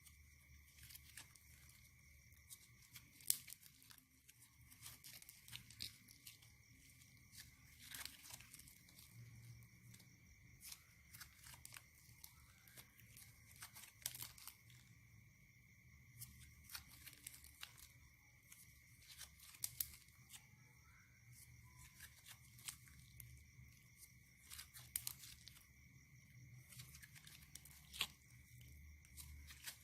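Slime being handled, stretched and pressed, giving faint irregular crackles and sharp little clicks and pops.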